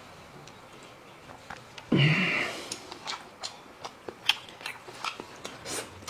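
A person eating with wet chewing and lip smacks, a few sharp smacks a second, as in a mukbang. There is a short, louder sound about two seconds in.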